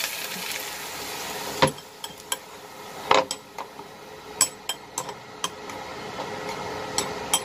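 Hot oil sizzling on chopped ginger and spring onion in a porcelain bowl, dying away over the first second and a half. Then a metal spoon clinks against the bowl as the sauce is stirred, a series of sharp clinks at uneven intervals.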